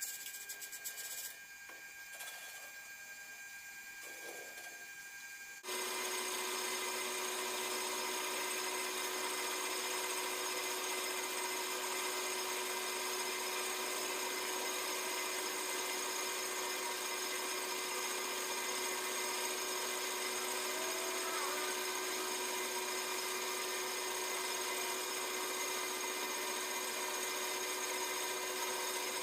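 Lathe running with a steady machine whine made of several held tones, which starts suddenly and much louder about six seconds in after a quieter stretch.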